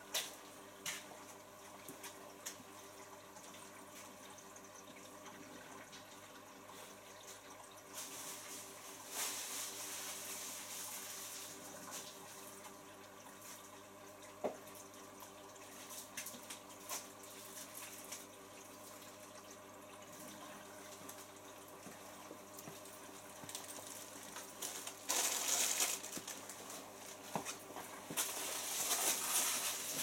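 Bosch Classixx dishwasher at the start of its Normal cycle: water running inside the machine over a steady low hum. The rush of water swells for a few seconds about nine seconds in, and again near the end.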